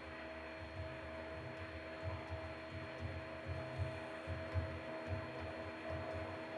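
Steady electrical hum of the recording setup, several even tones held throughout, with a faint irregular low thudding underneath.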